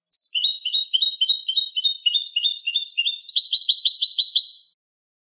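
European goldfinch singing one song phrase: a run of high, repeated twittering notes, about three a second, that quickens into a faster trill for its last second and a half and then stops.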